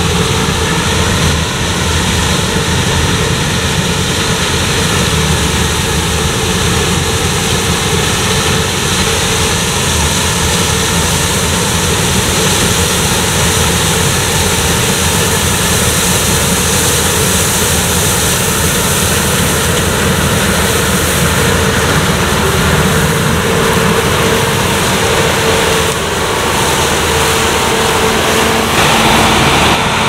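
Claas Lexion 600 Terra Trac combine harvester running steadily under load while cutting oilseed rape: a loud, even drone from the engine and threshing machinery, with hiss from the crop going through the header.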